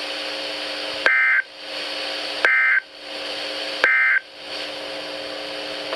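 Emergency Alert System end-of-message code over NOAA Weather Radio: three short, identical buzzy data bursts about 1.4 seconds apart, over steady radio hiss. The bursts signal the end of the warning broadcast.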